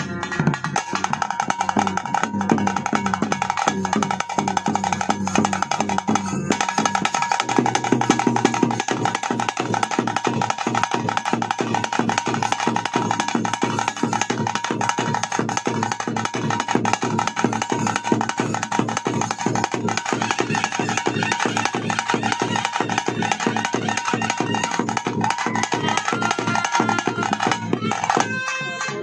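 Traditional ritual music: rapid, steady drumming under a wind instrument holding a long note, breaking off briefly near the end.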